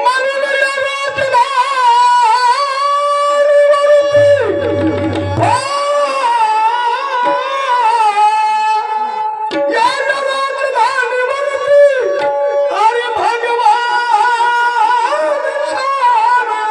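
Singing accompanied by tabla and a sustained instrument, the voice gliding between long held notes.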